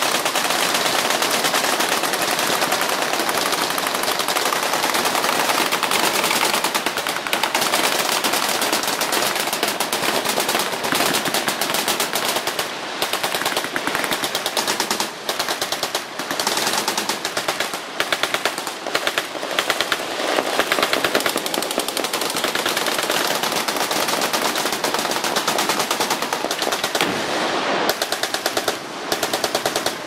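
Massed machine-gun fire: many automatic weapons on a firing line shooting at once in continuous, overlapping bursts. The firing breaks off in a few short pauses in the second half.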